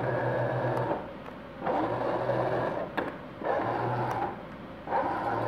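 The drive motors and gearbox of a 1986 Radio Shack Robie Sr. toy robot run in four short stretches of about a second each, with brief pauses between, as the robot is driven by its remote control.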